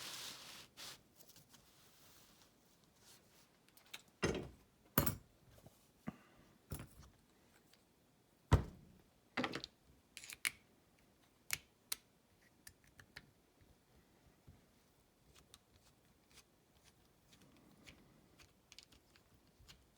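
Padlock and lock-picking tools being handled on a hard surface: scattered metallic clicks and knocks. The louder knocks come about four, five and eight and a half seconds in.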